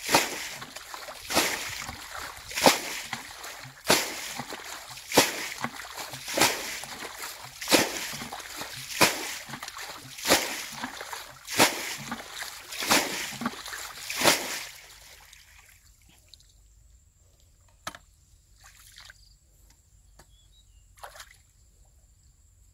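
Water being bailed out of a shallow muddy pool with a plastic bucket: a loud splash of thrown water about every second and a quarter, a dozen in all. About two thirds of the way through the bailing stops, leaving only a few faint splashes.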